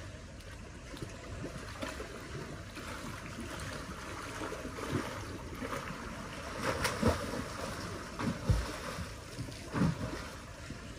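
Seaside ambience: small waves washing against the shore, with wind noise on the microphone and a few louder swells and low thumps in the second half.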